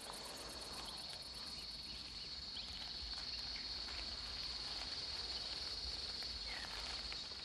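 Insects trilling steadily at one high pitch in quiet natural ambience, over a faint low rumble.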